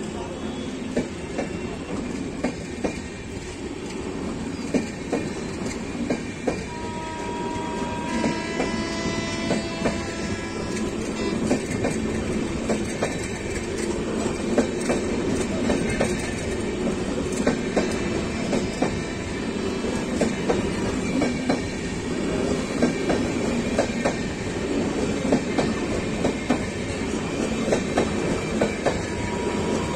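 Express train sleeper coaches rolling past close by, wheels clattering over the rail joints in a steady rhythm over a continuous rumble, with a brief high tone about seven to ten seconds in.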